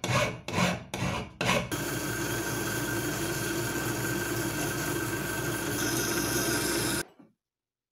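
A hand file rasping across a metal part clamped in a vise, about four quick strokes in the first second and a half. A steady running noise with a faint hum follows until about seven seconds in, when the sound cuts off to silence.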